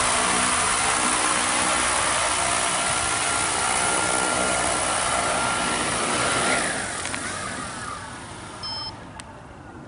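A large multirotor drone's electric motors and propellers running close by, with a steady whine over a rush of air. About six and a half seconds in they spin down and the sound falls away.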